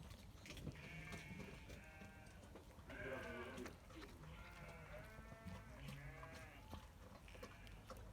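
Sheep bleating faintly, a string of quavering calls, several overlapping, the loudest about three seconds in.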